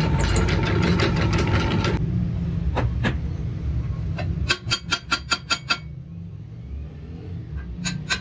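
A drill press runs for about two seconds and then stops. A hammer then taps on the steel ring gear: two blows, then a quick run of about eight taps, then a few more near the end. A low steady machine hum continues underneath.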